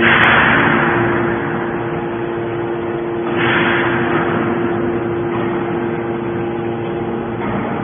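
Y81-250 hydraulic scrap metal baler running: a steady machine hum with a held tone, with a loud rushing surge at the start and another about three and a half seconds in.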